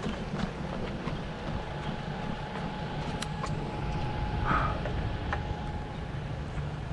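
Steady low rumble of passing road traffic, with a faint steady whine for a few seconds in the middle and scattered light taps.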